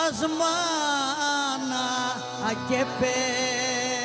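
Greek demotic folk song: a singer holds and bends long, wavering notes over steady instrumental accompaniment.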